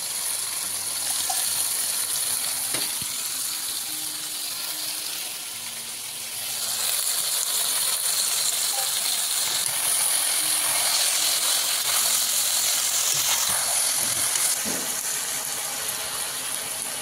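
Pork, potato pieces and freshly added tikoni boruwa greens sizzling in hot oil in a kadai, a steady hiss that grows louder about six or seven seconds in, with a few light clicks.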